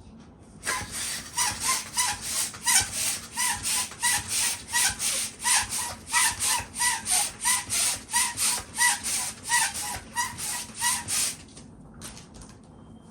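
Balloon being inflated with a hand pump: a quick, even run of strokes, about three a second, each a puff of air with a short squeak. The pumping stops near the end.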